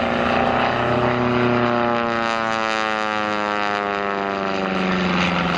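Pitts Special aerobatic biplane's engine and propeller droning in flight, the pitch sliding slowly downward across the few seconds.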